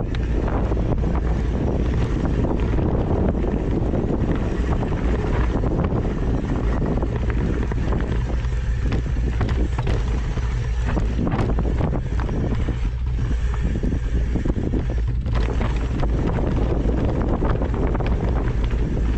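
Wind buffeting the microphone: a steady, loud low rumble with scattered short knocks and gusts, and no speech.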